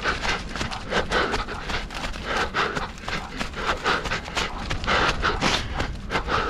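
A runner panting hard in rhythm with quick footfalls on a trail, mid-race at canicross pace.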